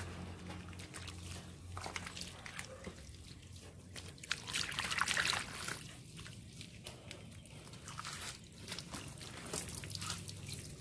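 Water from a garden hose trickling and splashing into a pot of wet potting soil while hands squelch and press the mud around a tree stump's base, loudest about four to five seconds in.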